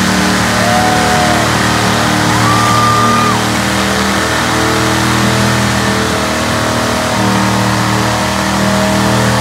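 Big-tyred mud bog truck's engine running hard at high revs as it ploughs through a deep mud pit, its pitch holding steady with small shifts, and a few short cries from the watching crowd in the first few seconds.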